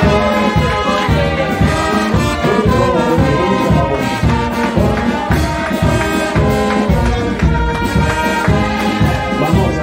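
Brass band music with a steady beat.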